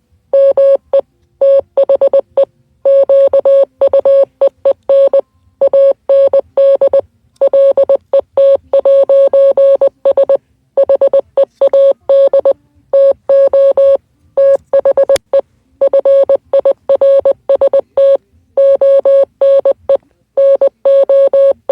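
Morse code sent as a single steady beep tone, keyed on and off in short dots and longer dashes with brief pauses between letters and words.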